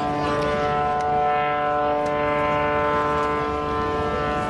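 Aircraft engine running steadily nearby: a loud, even drone made of several steady pitches that hold without rising or falling.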